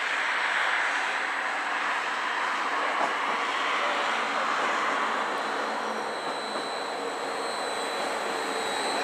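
Stadler FLIRT electric multiple unit running into the station and passing close by: a steady rushing noise with a thin high whine that grows stronger in the second half as the train nears.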